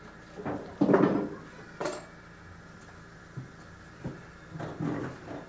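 Several separate clanks and knocks of hard, metallic objects being handled, the loudest about a second in and a sharp clack just before two seconds. The engine is not yet running.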